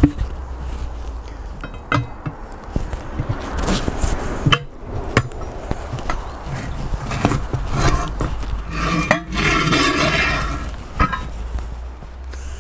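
Steel tyre bar and lever clanking on a Sealey TC960 manual tyre changer and the wheel rim as a car tyre is worked off the rim: a string of irregular sharp metal knocks and clinks.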